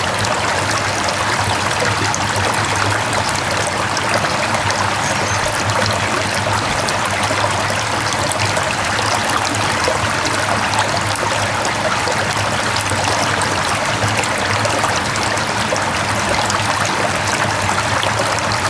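Mountain stream flowing over rocks: steady, even rushing and trickling of water.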